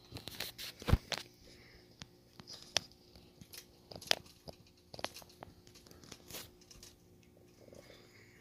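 Irregular small clicks and taps of metal RC monster truck chassis parts being handled and fitted by hand, with the sharpest click about a second in.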